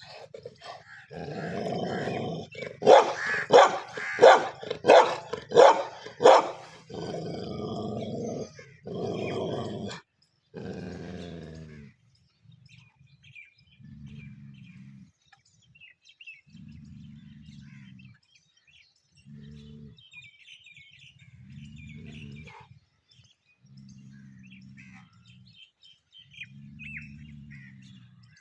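Dogs fighting each other: a loud stretch of snarling with a quick run of about six barks, then a long series of lower, quieter growls of about a second each, repeating. Birds chirp faintly in the background during the later growls.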